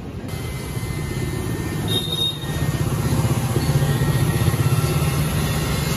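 Handheld heat gun running, its fan motor and hot-air blast making a steady whir while it heats a vinyl sticker on a motorcycle fuel tank. It gets somewhat louder a little before halfway.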